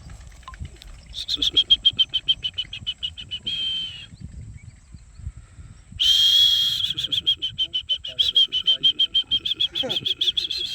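A high-pitched trill: one steady note pulsing very fast, in two long runs. The first lasts about three seconds, and the second starts about six seconds in and runs on for over four seconds.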